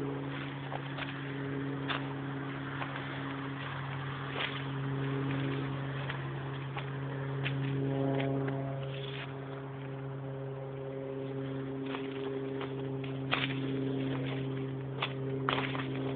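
A steady low drone with a few fixed overtones, growing richer for a moment about halfway through. Over it come scattered snaps and crackles of footsteps through forest undergrowth.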